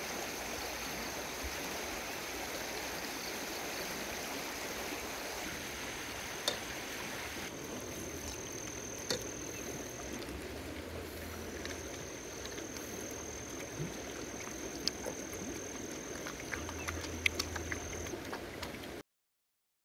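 Puppies eating rice from a bamboo trough, making scattered small clicks and smacks that start about eight seconds in and grow busier near the end, over a steady rush of flowing water and a steady high thin whine. The sound cuts off about a second before the end.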